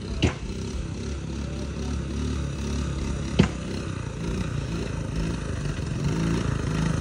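The small single-cylinder four-stroke engine of a 1985 Honda ATC70 three-wheeler runs as it is ridden, its pitch wavering a little. Two sharp clicks come about three seconds apart.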